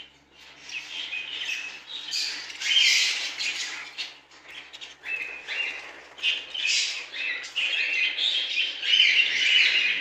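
A flock of caged budgerigars chirping and chattering over one another, briefly easing off about four seconds in.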